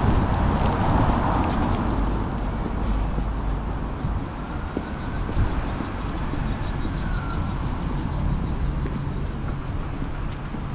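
Steady city traffic noise with a low rumble, a little louder in the first couple of seconds, then settling.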